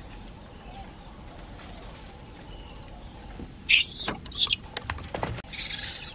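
High-pitched squealing of newborn long-tailed macaque infants, in two short bursts a few seconds in and then a longer squeal near the end.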